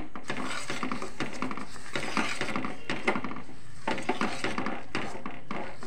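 Steel spoon scraping and clinking irregularly against a steel pot while white sesame seeds are mixed into thick, hot jaggery syrup.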